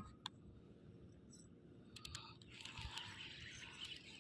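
Faint handling of a fishing rod and baitcasting reel: a sharp click at the start, then a few scattered soft clicks and a brief rustle.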